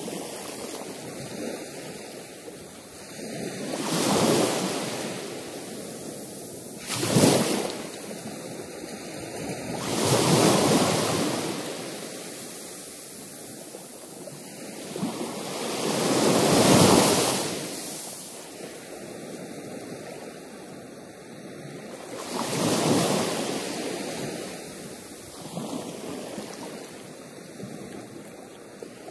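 Ocean surf breaking against coastal rocks: a steady wash broken by several swelling surges a few seconds apart, the loudest about seventeen seconds in and a short, sharp crash about seven seconds in.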